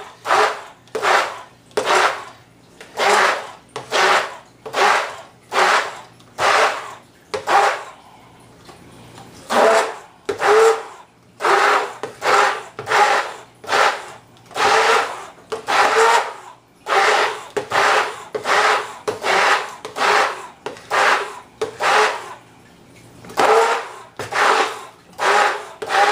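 Handheld immersion blender pureeing chunky tomato salsa in a bowl, its whirring and churning surging and dropping about once a second, with a brief lull about eight seconds in.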